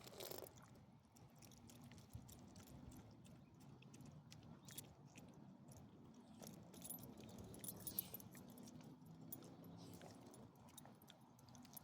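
Faint, intermittent jingling and clicking of small metal pieces, loudest about eight seconds in.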